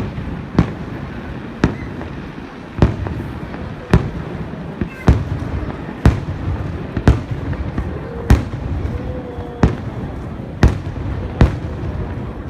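Fireworks shells bursting overhead: about a dozen sharp bangs, roughly one a second, each trailing off in a rumble between them.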